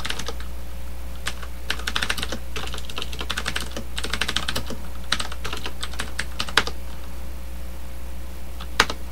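Typing on a computer keyboard in irregular flurries of quick keystrokes, with one sharper key click near the end, over a steady low hum.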